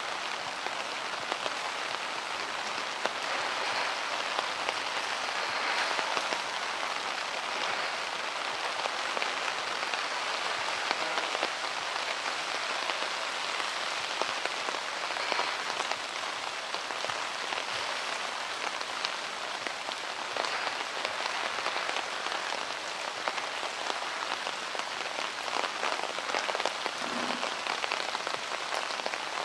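Heavy downpour: a steady, dense patter of rain falling.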